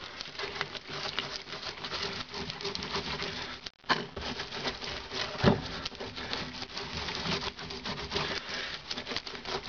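Gloved hand smearing thick bitumen mastic over a welded steel car floor: a steady wet, crackly scratching and rubbing. A brief gap a little under four seconds in.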